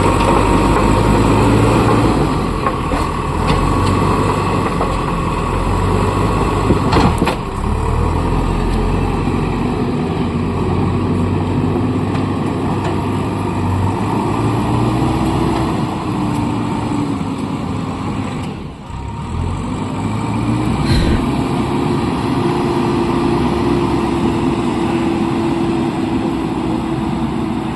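JCB excavator's diesel engine running, its pitch shifting up and down several times as it works, with a short knock about seven seconds in.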